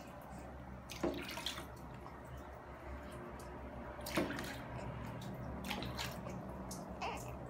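Water splashing and dripping as a baby's face is washed by hand during a bath, with short splashes about a second in, around four seconds and around six seconds.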